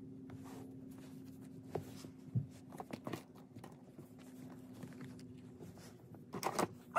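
Faint handling noises as toys are moved around during setup: a few light knocks and rustles over a steady low hum.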